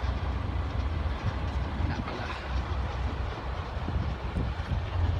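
Heavy diesel construction machinery running with a steady low rumble.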